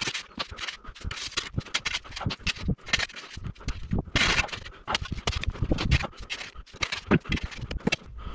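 Steel shovel digging into a pile of partly frozen sand and loading it into a metal wheelbarrow: irregular scrapes, crunches and knocks as the blade breaks out frozen lumps.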